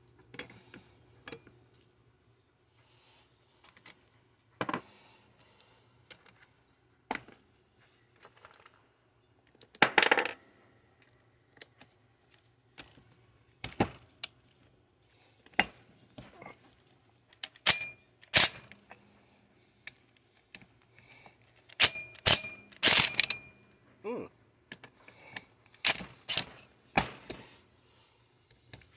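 Small metal parts and hand tools clinking and knocking against a work surface while a chainsaw engine is taken apart, sporadic separate clicks and clanks, a few with a short metallic ring.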